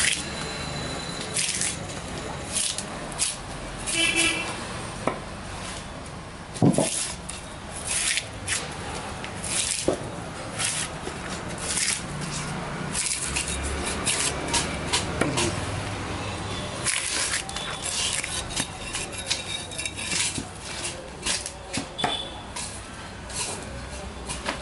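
A long machete-type blade chopping down the side of a standing log, splitting off thin wooden slats: a run of sharp, irregular chops and cracks of wood.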